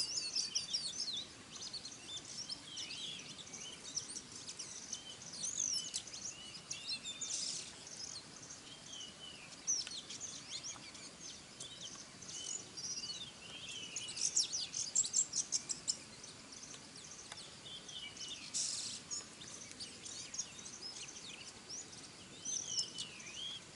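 Wild birds chirping, with many short overlapping whistled calls and quick trills, busiest about two-thirds of the way through, over a faint steady background hiss.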